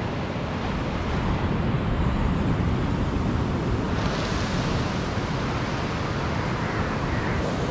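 Steady noise of sea surf with wind buffeting the microphone. The hiss grows brighter about halfway through.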